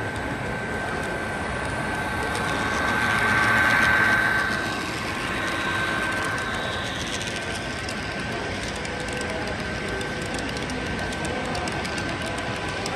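Model train running on a layout, growing louder and peaking about four seconds in as it passes close, then settling back to a steady running sound.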